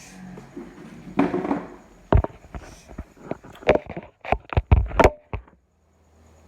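A brief rustle, then an irregular run of about a dozen sharp knocks over some three seconds, stopping about five seconds in.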